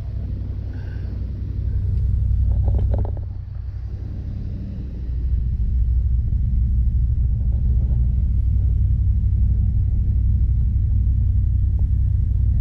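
Steady low rumble that dips briefly and returns. A few light clicks are heard about two to three seconds in, as a hook is worked out of a fish.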